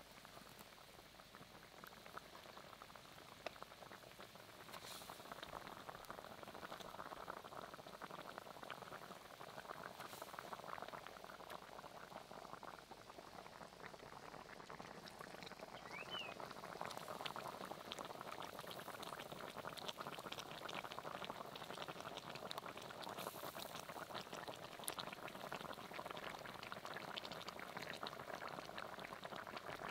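Thick fish curry gravy boiling in a pot, a dense, fast crackle of small popping bubbles that grows louder over the first few seconds and then holds steady.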